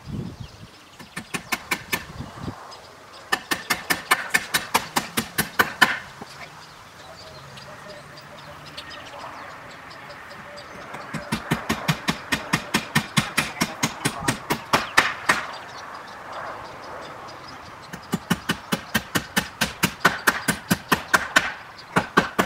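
Rapid, even mechanical clicking, about eight clicks a second, in four bursts of two to four seconds with short pauses between.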